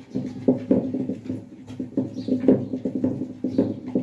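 Stone roller worked by hand over a granite grinding slab (ammikkal), grinding wet chutney paste, with stone knocking and scraping on stone about four times a second.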